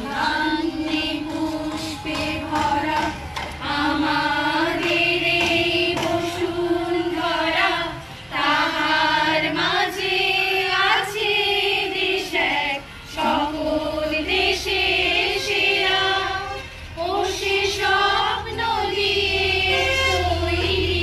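A group of people singing together in unison, led by a woman singing into a microphone, with long held notes and short breaks between phrases.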